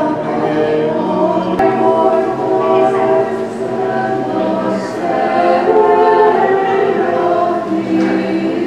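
Orthodox church choir singing together, several voices holding chords that change every second or so.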